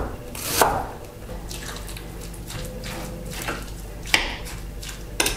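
Chef's knife cutting a red onion on a wooden cutting board: one loud knock of the blade on the board about half a second in, then lighter irregular clicks and taps as the diced onion is spooned into a stone molcajete.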